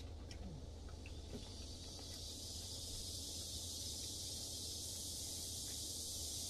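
A steady high hiss fades in about two seconds in and holds, over a low steady hum, with a couple of faint clicks in the first second or so.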